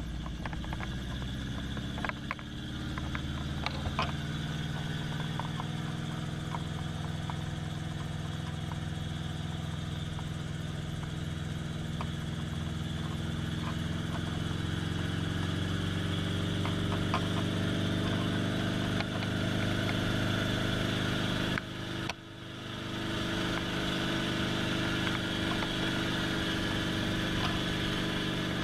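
Small helicopter's engine and main rotor heard from inside the cabin, running up to speed: the pitch climbs in the first few seconds and again partway through as it prepares to lift off. The sound dips sharply and briefly about three quarters of the way through.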